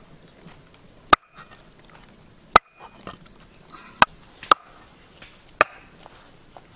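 Cleaver chopping frog and eel meat, five sharp single chops at uneven intervals of about a second and a half.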